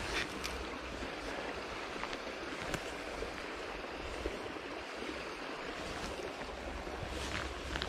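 Steady rush of flowing creek water, with a few faint ticks, more of them near the end.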